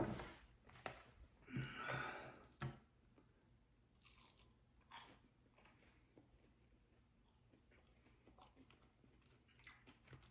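A person chewing and biting food. There are a few louder crunchy bites in the first three seconds, then only faint, scattered chewing sounds.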